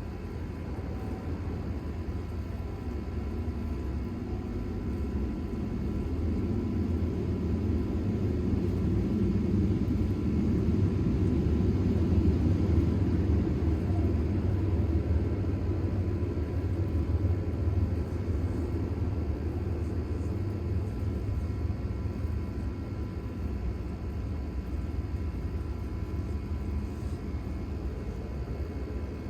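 Low rumble of a distant airplane passing over, slowly swelling to a peak midway and fading away again.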